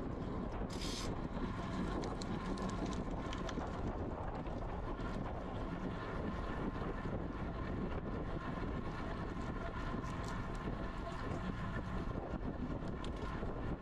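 Steady wind rush on a GoPro's microphone while riding a road bike at speed, with a short hiss just under a second in.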